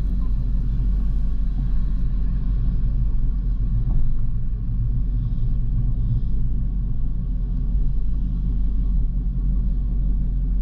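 C6 Corvette convertible's V8 running at low cruising speed, a steady low rumble with no revving, heard from behind the open cockpit.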